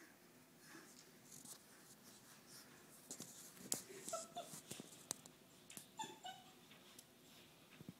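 Great Dane puppy whimpering softly, two short groups of high whines about halfway through and a little later, with a few light clicks and taps as it pushes a ball about on a tile floor.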